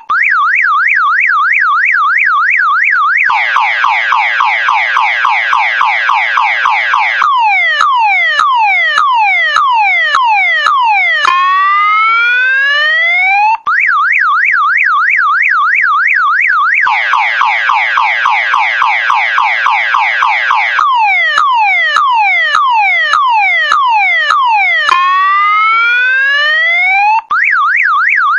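Electronic multi-tone alarm siren of the car-alarm kind cycling through its tones: a fast up-and-down warble, a dense rattling trill, quick falling sweeps, then slow rising whoops. The whole sequence repeats about every 13 and a half seconds, with a brief dropout at each repeat.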